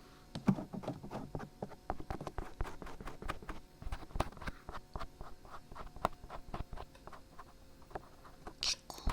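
Dried glue being peeled off the ear of a 3Dio binaural microphone: a dense, irregular run of small sticky crackles and ticks.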